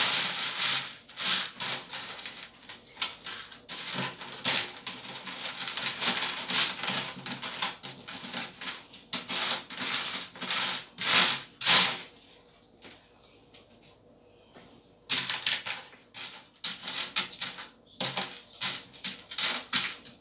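Loose coins clinking and rattling against each other in a plastic bowl as a hand stirs and picks through them, a rapid, dense run of small clicks. It stops for about three seconds roughly two-thirds of the way through, then resumes.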